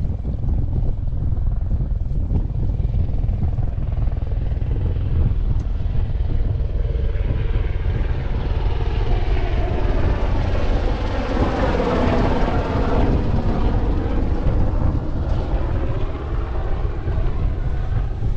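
An aircraft flying over: it grows louder to a peak about two-thirds of the way in, then fades, its pitch sliding down as it passes. Under it, steady wind rumble on the microphone.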